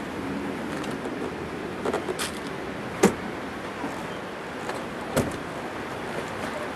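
Latches and frame of a Mazda 5's folding seat clicking and clunking as the seat is worked by hand: a few quick clicks about two seconds in, a sharp clack about three seconds in, and another knock near five seconds.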